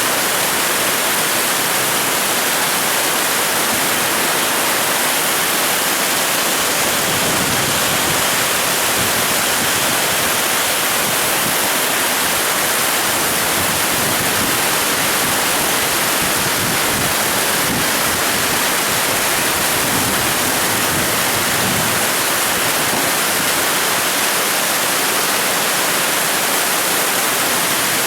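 Heavy rain from a summer storm pouring down in a steady, even hiss.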